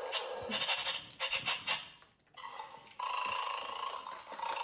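Battery-operated toy bulldog game sounding off as a dog noses at the bone in its dish: a quick run of clicks and rattles over the first two seconds, then a steady electronic growl from about three seconds in.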